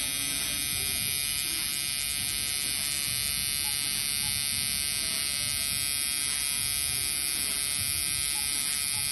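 Tattoo machine buzzing steadily while its needle runs along the line work of script lettering in the skin.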